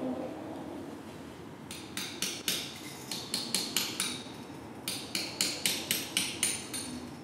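A small hammer tapping quickly on glazed ceramic tiles, in two runs of about ten strokes each at some five taps a second, every tap giving a short bright ring. A low steady hum runs underneath.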